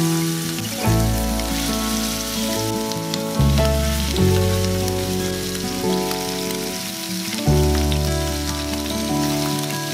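Chicken drumsticks sizzling in hot oil in a frying pan, a steady hiss, under background music whose low notes change every second or so.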